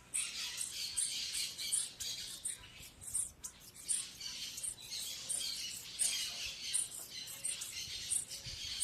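Small birds called vi-vi giving a stream of quick, high-pitched chirps, with sharper peaks about every half second.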